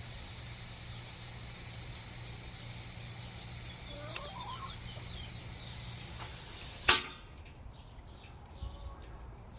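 Compressed air hissing steadily out of the air system, cut off about seven seconds in by a short, sharp blast. Faint bird chirps can be heard behind it.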